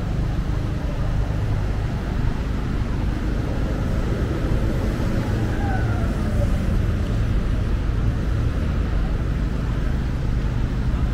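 City road traffic: a steady rumble of cars and motorbikes passing at a busy junction, with a brief falling whine from a passing vehicle about six seconds in.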